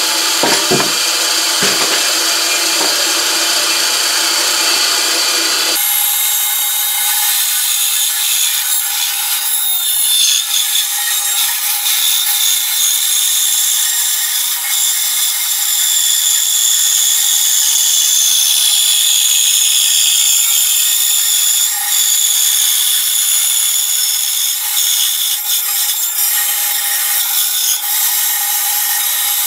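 Delta benchtop band saw running and cutting through a wooden board: a steady high sawing hiss with a whine over it, with a few knocks of the board against the table in the first two seconds. The blade is now mounted with its teeth pointing down, so it cuts cleanly.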